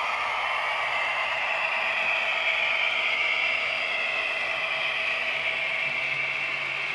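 Hornby model trains running on the layout's track: a steady mechanical whir of small motors and wheels on rail, as a second model train runs past close by.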